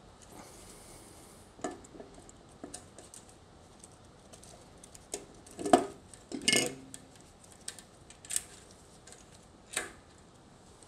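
Scattered metallic clinks and rattles of a Honda K24 balancer and oil pump housing and its drive chain being worked loose by hand, with two louder clanks a little past halfway.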